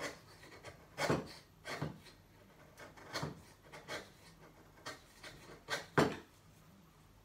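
Chisel pared by hand down the slot of a wooden bridle joint: the blade scrapes and shaves the end grain in a series of short strokes about a second apart, the strongest about six seconds in. The strokes clean the socket back to the marking-gauge line.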